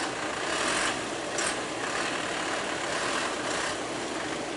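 A heavy vehicle's diesel engine running steadily, with a couple of brief surges in the first second and a half.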